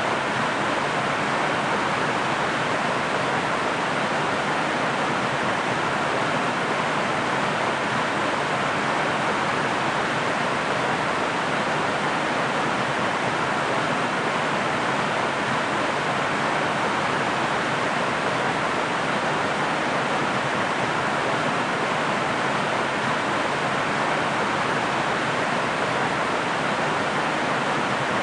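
Waterfall: a steady, unbroken rush of falling water that never changes in level.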